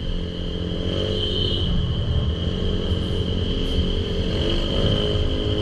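Motor scooter running while riding in city traffic, with road rumble; the engine note rises about a second in and again near the end as it speeds up.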